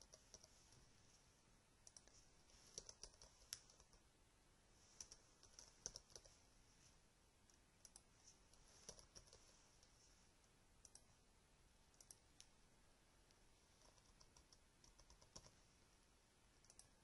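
Faint computer keyboard typing: light key clicks in short irregular bursts with brief pauses between them.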